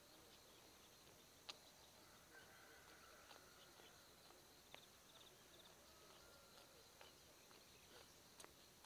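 Near silence: faint outdoor field ambience with a steady high insect drone, a few soft clicks and faint chirps.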